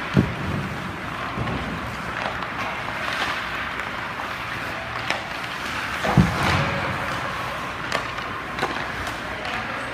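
Ice hockey skate blades scraping and carving across the ice, with two loud sharp knocks of stick and puck, one just after the start and one about six seconds in, and several lighter clicks between.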